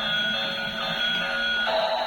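Electronic alarm-like tones: a few steady pitches sounding together, pausing and resuming in a quick rhythm, then giving way to a harsher buzzing tone near the end.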